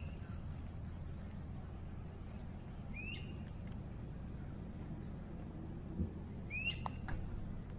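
A bird calling three times about three seconds apart, each call a short whistle that rises quickly and then levels off, over a low steady background hum. A few faint clicks come near the end.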